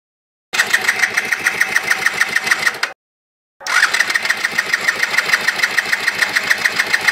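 Mahindra Duro 125cc four-stroke scooter engine turning over in an attempt to start it, with a rapid, even pulsing. It comes in two spells, the first about two and a half seconds long, then a short break and a longer second spell.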